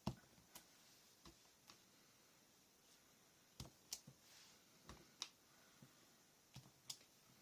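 Faint, scattered taps and clicks, some in quick pairs, from rubber stamps being inked on an ink pad and pressed onto paper.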